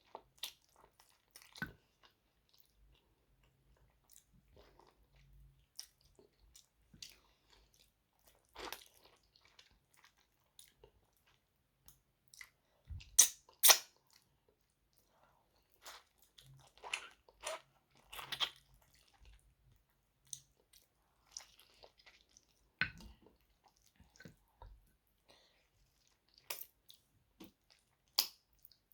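Close-up eating sounds of mutton curry and rice: irregular chewing, biting and mouth clicks, with two sharper crunches about halfway through.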